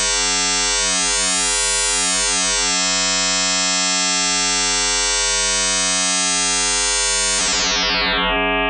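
FM synthesizer drone from sine-wave oscillators modulating one another in the Auraglyph iPad app: a sustained tone dense with overtones, its upper overtones slowly wavering for the first few seconds before holding steady. About seven and a half seconds in, the brightness sweeps down sharply and the tone turns darker.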